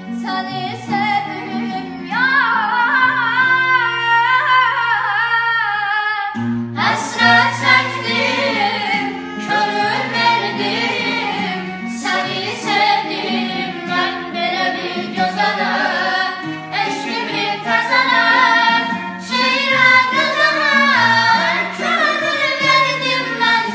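Children singing a Turkish folk love song solo over a held instrumental accompaniment, with heavy vibrato and ornamented melody; a boy's voice gives way to a girl's after a short break about six seconds in.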